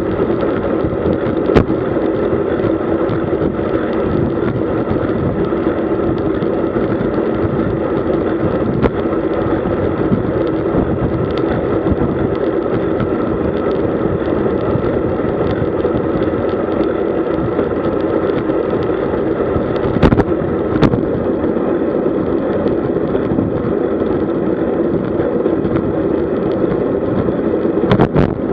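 Steady rush of wind and tyre noise from a road bike riding in a group at about 45 km/h. A few short sharp clicks break through, twice close together about two-thirds of the way in and once near the end.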